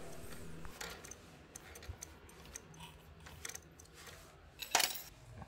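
Faint, irregular light metallic clicks as the flywheel of a Honda Wave S100 engine is turned by hand to check that the newly fitted cam chain and cam sprocket rotate freely without catching, with one louder click near the end.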